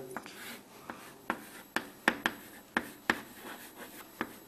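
Pen strokes on a writing surface as a diagram of a piston and piston rings is sketched: about a dozen short, sharp taps and scratches at irregular intervals.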